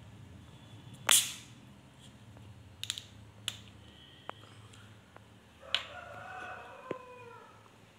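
Plastic soda bottle's screw cap twisted open: a short, sharp hiss of escaping gas about a second in, then a few light clicks and knocks from the cap and bottle being handled.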